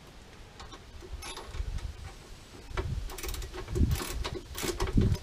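Irregular metal clicks, knocks and rattles of a nut and bolt being fitted by hand through a steel trailer-hitch receiver, with dull bumps. They are sparse at first and get busier about three seconds in.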